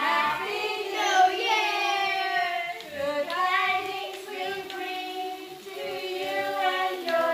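A group singing a song together, with children's voices loudest and notes held and moving from pitch to pitch.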